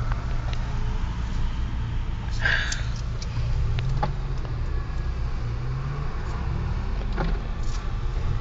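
Jaguar XJ6 3.2 Sport's straight-six engine pulling hard, heard from inside the cabin, its note rising and falling several times as the car accelerates. There is a brief rattle about two and a half seconds in.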